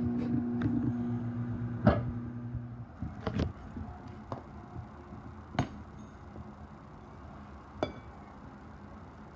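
Microwave oven running with a steady hum, which cuts off about three seconds in. A few sharp clicks and knocks follow, spaced a second or two apart.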